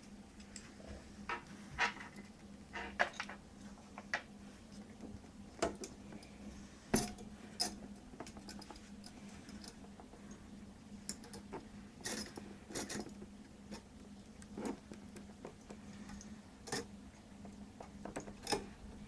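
Irregular light clicks and metallic clinks of a fan being clipped onto a be quiet! Shadow Rock LP CPU cooler heatsink with its wire clips, about a dozen sharp ones spread unevenly over a faint steady hum.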